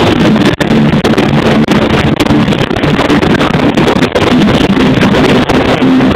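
Punk band playing live, so loud that the recording overloads into a dense, distorted, continuous wash of sound.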